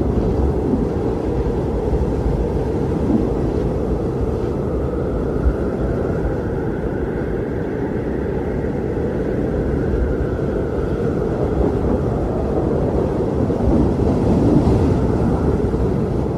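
Strong wind blowing steadily: a deep, rushing noise with a fainter higher whistle that slowly rises and then falls away.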